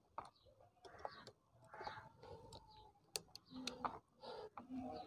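Faint metallic clicks of circlip pliers working the retaining circlip on a Honda CD-70 kick-starter shaft, the sharpest about three seconds in, with faint bird calls behind.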